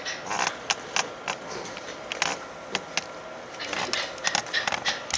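Scattered sharp clicks and short rustles as a small dog shifts and is petted on a person's lap.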